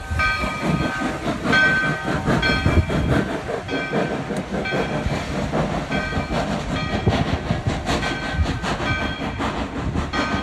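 Steam locomotive working hard as it pulls out with its coaches, with a heavy, irregular exhaust and running noise. Over it a locomotive bell rings steadily, about two strokes a second.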